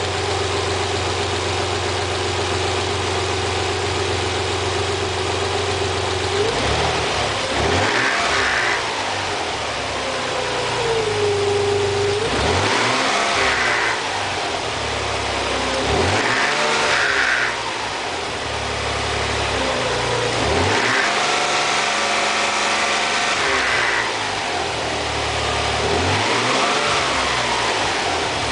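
Nissan 300ZX twin-turbo V6 idling steadily, then blipped up and let fall about five times. On the revs the variable valve timing (VTC) gives its telltale chatter as it engages, which the owner puts down to the VTC actuator sticking in a resonance until oil pressure builds enough to move it.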